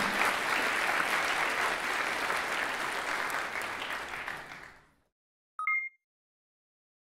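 Audience applauding, fading out about four and a half seconds in. Near the end comes a short electronic chime of two tones at once.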